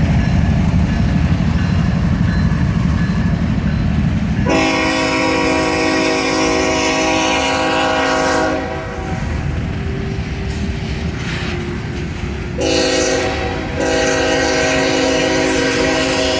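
A CSX ES44AH diesel locomotive approaching, its heavy low rumble giving way about four seconds in to a long blast on its air horn. After a pause of about four seconds the horn sounds again and keeps going after a brief break: the warning pattern for a grade crossing.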